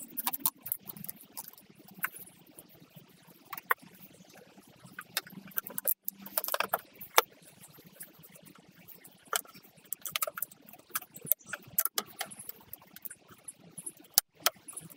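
Plywood panels of a flat-pack dog house knocking and clicking against each other as they are slotted together, a scatter of irregular sharp taps and clicks.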